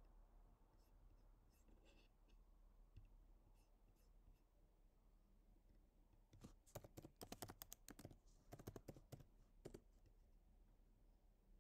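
Computer keyboard typing a quick run of about a dozen keystrokes, after a few faint clicks.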